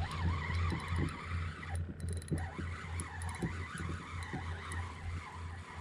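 Spinning reel being cranked to bring in a hooked trout: a steady low whirring hum that pulses about twice a second, with a wavering higher whine over it.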